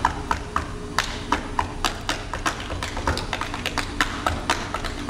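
Sharp irregular taps and clicks, several a second, over a low sustained tone: the sparse percussive backing music of a spoken-word track.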